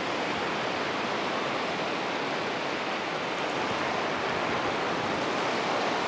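Black Sea surf washing up the sandy shore close to the microphone: a steady rush of foaming shallow waves.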